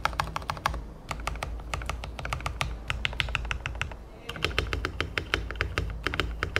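Keychron V1 mechanical keyboard's long stabilized keys, on pre-lubed screw-in PCB-mount stabilizers and Gateron G Pro Milky Yellow switches, pressed rapidly again and again: a fast run of clacks with a short pause about four seconds in. It is a sound test of the stabilizers, which sound fine straight from the factory.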